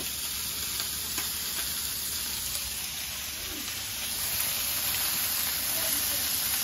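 Pieces of rabbit meat sizzling as they fry in frying pans: a steady hiss that grows a little louder about four seconds in.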